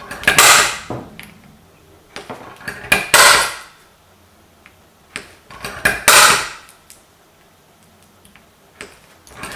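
Automatic centre punch snapping down on a sheet-metal blank three times, roughly three seconds apart, each a sharp metallic crack with a brief ring, marking hole centres for drilling; faint small clicks come between the strikes as the punch is set on the next point.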